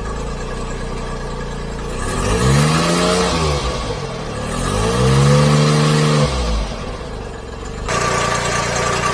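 Supercharged Daihatsu Hijet mini-truck engine with an AMR300 supercharger, revved twice while warming up: each rev rises and falls in pitch over a second or two, with a rushing hiss that rises with it. Near the end the sound changes abruptly to a steady running sound.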